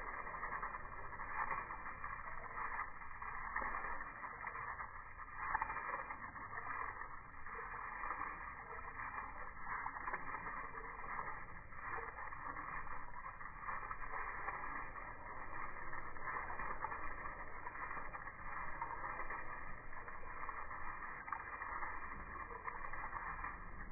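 Lawn sprinkler spraying water over grass, heard in slow motion: a steady, dull rushing hiss.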